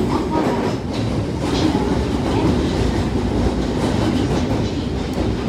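Osaka Midosuji Line 30000 series subway train running between stations, heard from inside the car: a steady rumble of the wheels on the rails, with a few faint clicks.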